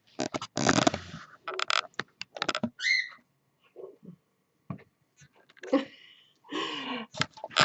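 Scattered short rustling and clicking sounds, with one brief rising chirp from a cockatiel about three seconds in.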